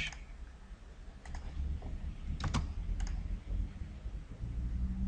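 A few scattered clicks of a computer keyboard and mouse, about five short taps, over a low steady background hum.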